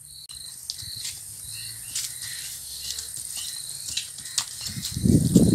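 Steady insect chirping with scattered soft clicks. Near the end, loud irregular thumping and rustling starts as a horse trots off over the field.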